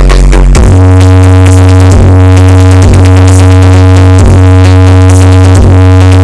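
Electronic dance remix blaring at very high volume from a 'sound horeg' carnival sound system: deep bass notes held and then changed about every second and a half, with short breaks between them, under synthesizer chords.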